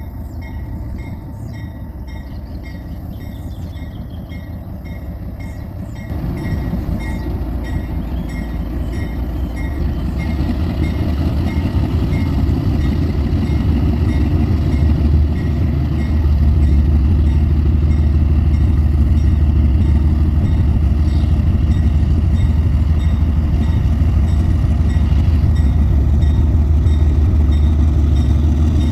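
Two GE ES44ACi diesel-electric locomotives working hard up a grade with a loaded freight train: a deep, low rumble from their V12 diesels that grows steadily louder, then holds loud from about halfway through.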